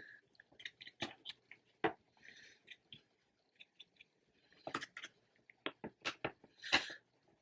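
Light clicks, taps and brief rustles of a phone and its plastic accessories being handled, irregular and scattered, with a cluster of taps a little before the end.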